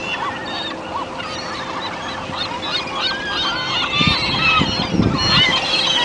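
A flock of gulls calling over one another in a dense chorus of short, arched squealing calls that grows busier about four seconds in. A low rushing noise sits under the calls between about four and five seconds in.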